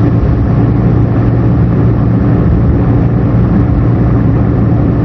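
Semi-truck tractor's gasoline engine running steadily while under way, a loud, even low drone that holds one pitch.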